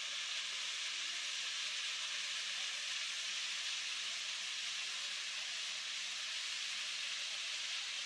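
Small waterfall pouring steadily onto a hippopotamus standing beneath it: a constant, even hiss of falling and splashing water.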